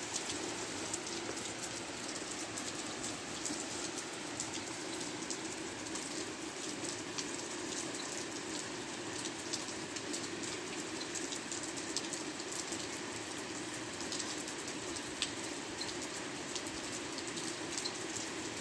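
Steady rain falling, with many small drop ticks on surfaces.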